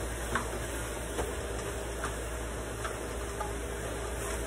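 A spatula clicks lightly against a pan as chicken pieces are turned while they brown, about four taps in the first three seconds, over a steady low hiss.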